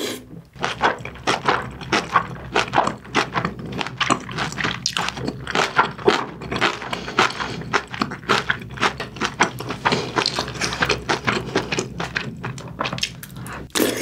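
Close-miked chewing of braised aged kimchi and pork belly: a rapid, irregular run of wet mouth clicks and squelches, several a second.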